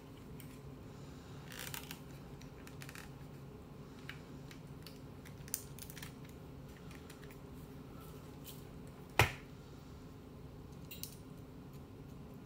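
Faint handling noise and scattered small clicks from fingers and a small tool working on the inside of an opened ITT Trimline telephone handset, over a low steady hum. One sharp click about nine seconds in is the loudest.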